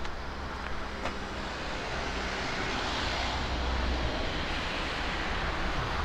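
A passing road vehicle's rushing noise swells and eases, over a low rumble of wind on the microphone.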